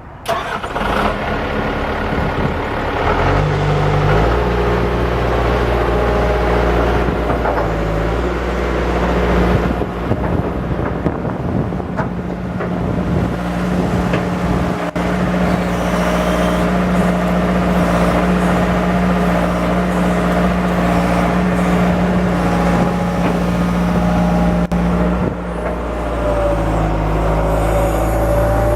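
John Deere 160LC hydraulic excavator's diesel engine running steadily, its engine note shifting a few times as the speed or load changes.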